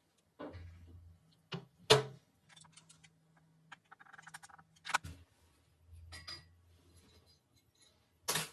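Small metal parts being handled: a few sharp metallic knocks and clicks, the loudest about two seconds in, with light clinking and rubbing between them.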